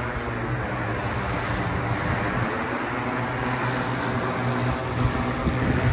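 Quadcopter delivery drone's propellers running in a steady hum.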